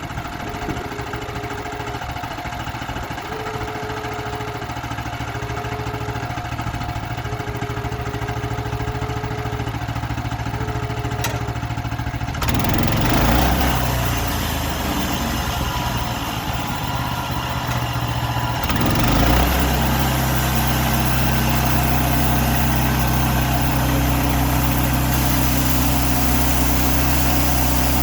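Sawmill engine running steadily. About 12 seconds in the sound gets louder and fuller, and from about 19 seconds in it settles into a steady, heavier run.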